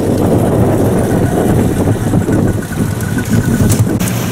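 Boat motor running steadily, a low rumble with wind buffeting the microphone.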